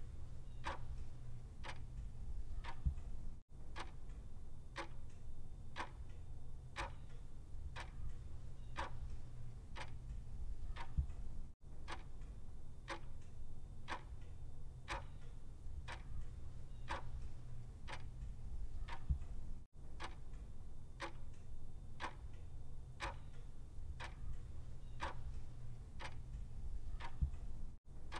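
Clock ticking in an even tick-tock, a little over two ticks a second, over a steady low hum, with a very brief gap about every eight seconds.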